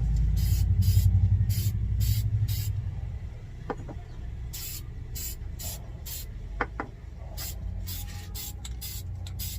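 Aerosol spray paint can sprayed in short repeated bursts of hiss, in three quick runs of about five or six strokes each, as the paint is laid on in a crisscross pattern. A low rumble sits under the first run.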